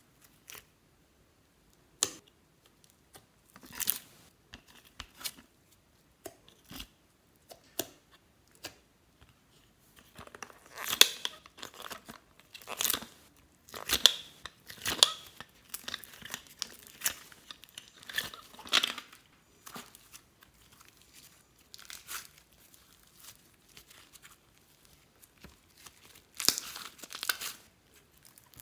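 Slime being squished with the fingers and pulled out of a plastic tray into a glass dish: irregular sticky crackles, small pops and tearing sounds, in clusters around the middle and again near the end.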